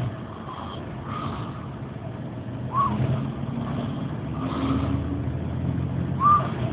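Elderly woman snoring in a bus seat, a snore about every second and a half to two seconds, some ending in a short whistling note, over the steady low hum of the bus engine.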